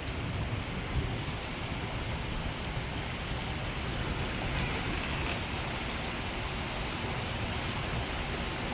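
Heavy rain falling steadily in a thunderstorm, with a low rumble of thunder underneath.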